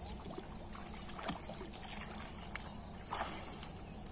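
Shallow water sloshing and splashing as people wade through it, with a few short splashes, the clearest a little past three seconds in.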